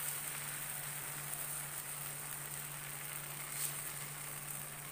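Tomato dhirde batter sizzling on a hot, oiled tawa griddle as it is spread out; a steady, even hiss.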